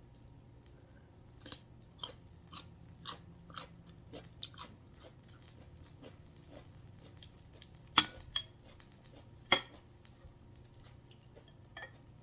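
Close-up chewing and crunching of food, a run of crisp bites about two a second. Three louder sharp clicks come a little past the middle.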